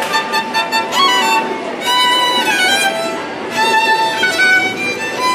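Solo violin playing a quick classical passage: fast runs of notes broken by a few longer held notes.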